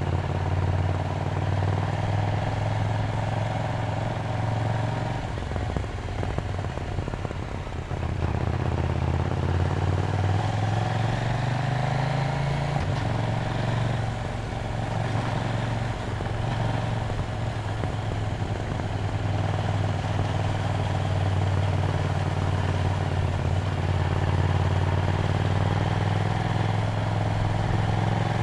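KTM Duke 790's 799 cc parallel-twin engine running under way. Its note dips about five seconds in, climbs in pitch as the bike accelerates from about eight to thirteen seconds in, then holds steady while cruising.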